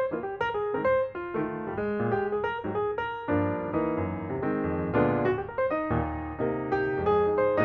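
Background piano music: a steady flow of single notes and chords, each note struck and then fading.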